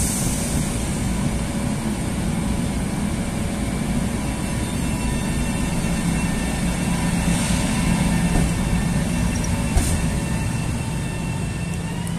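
LIRR M3 electric multiple-unit trains moving slowly at close range: a steady low traction-motor hum with several faint steady whine tones over it. There is a short air hiss about halfway through, a single knock near the end, and a whine that starts to rise in pitch just at the close.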